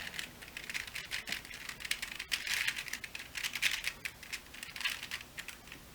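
Plastic layers of a Void Cube, a hollow-centred 3x3 puzzle cube, being turned by hand: runs of quick clicks and rattles in several short bursts.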